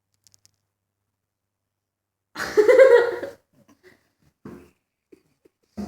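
A sleeping pet snoring: one loud, wavering snore lasting about a second, starting about two seconds in, followed by a few faint breaths.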